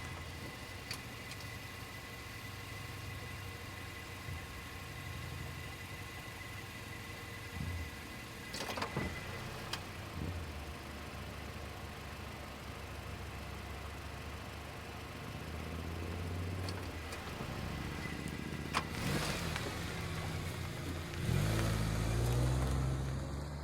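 Cars driving past on a road, several passes in turn, each engine swelling and then dropping in pitch as it goes by. The loudest pass comes near the end.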